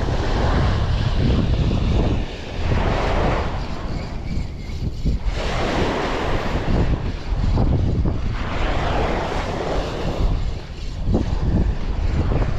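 Wind buffeting the microphone in gusts that swell every couple of seconds, over the wash of sea waves.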